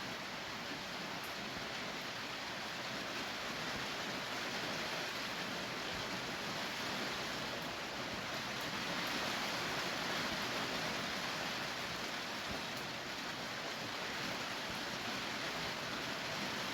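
Steady rainfall, an even hiss of rain coming down without a break.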